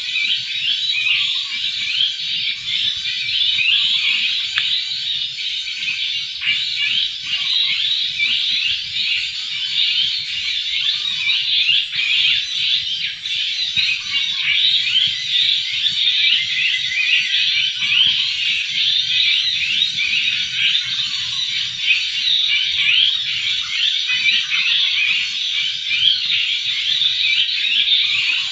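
A dense, steady chorus of rapid, high chirping and trilling calls, with a faint very high note repeating about every two seconds.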